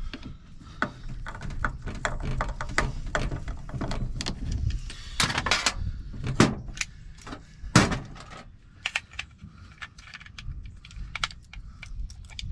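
Small metal clicks, clinks and knocks from a mortise lock and hand tools being handled, with a few louder knocks in the middle.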